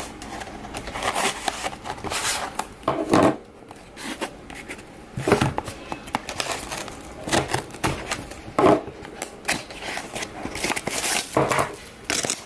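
Packaging being handled and opened by hand: irregular crinkling, rustling and light knocks.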